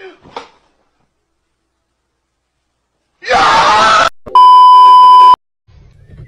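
About three seconds of silence, then a loud, strained scream-like cry lasting about a second, followed at once by a steady high beep tone for about a second that cuts off abruptly.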